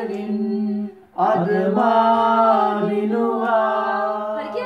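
A man singing unaccompanied in long drawn-out notes: one held note, a short break about a second in, then a longer phrase of sustained notes.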